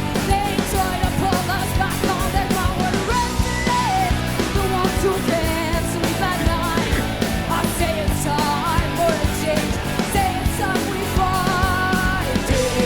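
Live rock band performance: a woman singing over distorted electric guitars, bass and drums.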